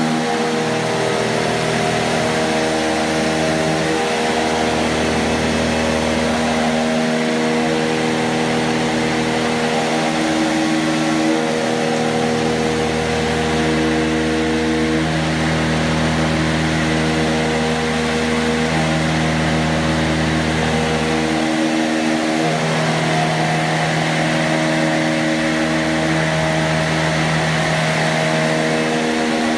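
Robatel DC160CC explosion-proof decanter centrifuge, belt-driven by a 10 hp electric motor, running steadily at speed with a water feed: a steady hum of several pitched tones that slowly swell and fade in turn, over an even hiss.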